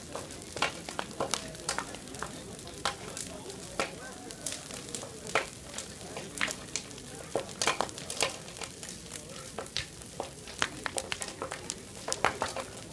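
Bonfire of wooden pallets crackling, with irregular sharp pops and snaps over a steady hiss of flame.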